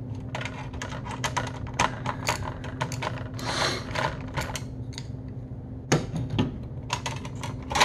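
A screwdriver clicking and scraping as it backs small Phillips screws out of a thin metal shielding cage over a circuit board, in quick clusters of clicks, with a low steady hum underneath.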